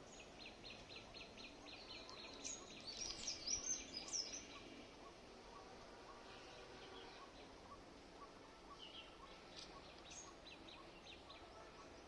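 Wild birds calling: a run of short, even, high notes repeated about four times a second, with louder, sharp chirps over it between about two and four seconds in, and a few more short calls near the end.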